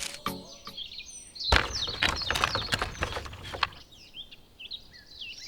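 Small birds chirping, many short twittering calls, with a run of clicks and knocks from about one and a half to three and a half seconds in.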